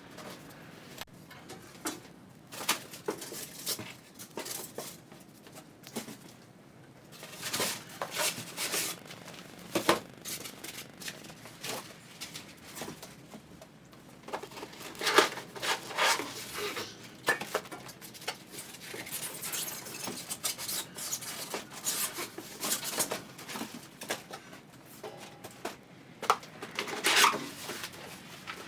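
Unpacking a pellet grill: irregular rustling, scraping and short knocks as packaging and metal grill parts are handled, with louder flurries of handling now and then.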